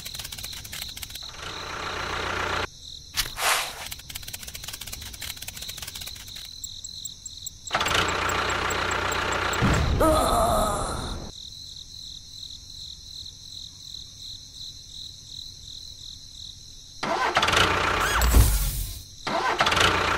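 Added sound effects: a loud explosion about ten seconds in, then near the end an engine starting and running with a deep rumble.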